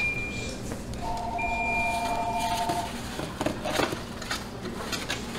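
Busy kitchen noise: steady electronic tones sound and stop in the first half, then a run of short knocks and clatters from about halfway through.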